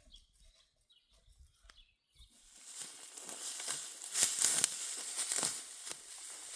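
Dry barley stalks crackling and rustling as they are pulled up by hand, starting about two and a half seconds in, with many sharp snaps and tearing sounds that are densest near the middle.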